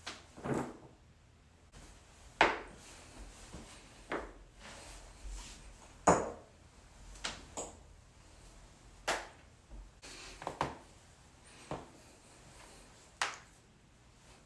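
A series of sharp joint cracks and pops, about a dozen at uneven intervals, some in quick pairs, with the loudest two near the start and the middle.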